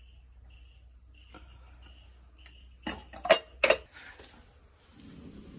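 Metal cooking pots and utensils clanking sharply three or four times, about three seconds in, over a steady high cricket trill.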